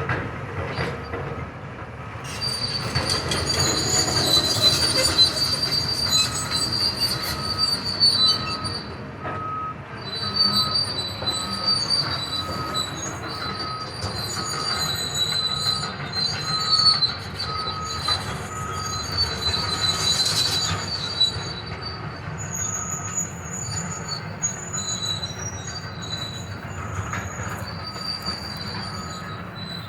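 Heavy demolition machinery working: metal squealing and screeching over a low engine rumble, with a back-up alarm beeping steadily from about six seconds in.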